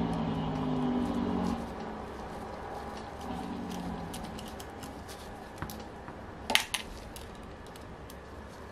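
Small metal clicks and taps of a hex key and screws against the aluminium crankcase and cylinder of an OS FF-240 Pegasus model engine as a cylinder is unbolted, with a sharp pair of clicks about six and a half seconds in.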